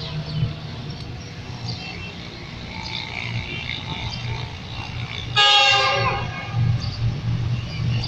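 GEU-40 diesel locomotive's horn sounding one short blast about five and a half seconds in as the train approaches, over a steady low rumble.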